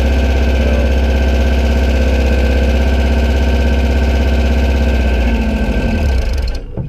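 Dune buggy engine idling steadily, then stumbling near the end and dying out suddenly: the engine stalls.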